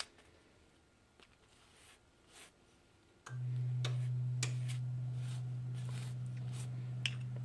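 Pastry brush dabbing liquid onto a cake, making faint scattered taps and clicks. About three seconds in, a steady low hum starts suddenly and runs on, louder than the brushing.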